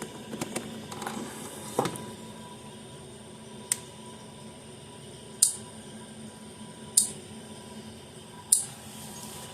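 Zareba 25 mile electric fence charger firing its pulses: a sharp, loud snap about every second and a half, four in all, as two touching parts arc against each other with each pulse.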